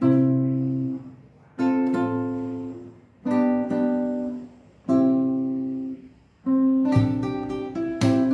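Acoustic guitar played fingerstyle: four plucked chords about a second and a half apart, each left to ring and fade, then a run of picked notes from about six and a half seconds in.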